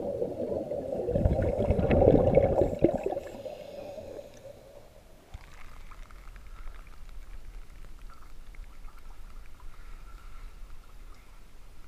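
Scuba regulator exhaust: a diver's exhaled bubbles gurgling and crackling past the camera underwater, swelling about two seconds in and dying away after about four seconds. After that comes a quiet stretch with only a faint steady whine and low hum.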